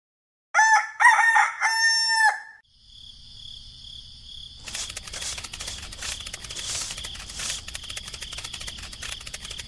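A rooster crows once, about two seconds long. Then a small motor's high steady whine starts, and a few seconds later a fast, even rattling clatter joins it and keeps going.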